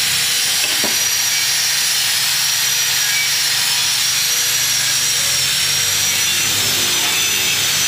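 Electric angle grinder running steadily with a high-pitched whine.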